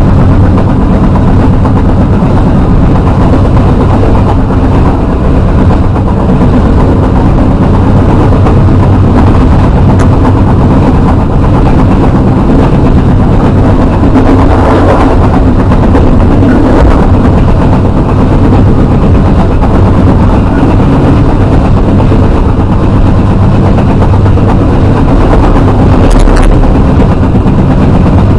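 Steady, loud running noise of a moving passenger train heard from inside the coach: wheels on the rails with a low drone.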